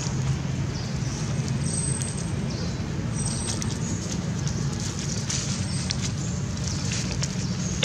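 Dry fallen leaves crackling and rustling in short scattered bursts as baby macaques scramble over them, over a steady low rumble.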